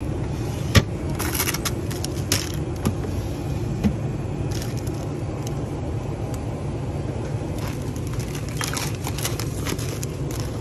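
Steady low hum of store refrigeration, with a sharp knock about a second in as the sliding glass lid of an ice chest freezer is handled, and scattered short crinkly rustles and clicks.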